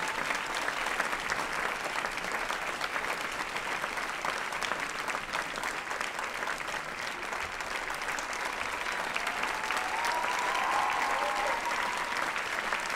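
An audience applauding: steady, dense clapping.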